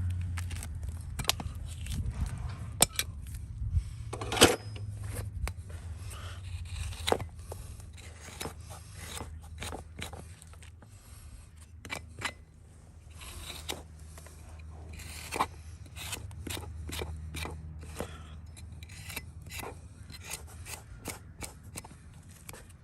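Hoof being trimmed with farrier's tools: irregular sharp snips and scrapes, over a low steady hum.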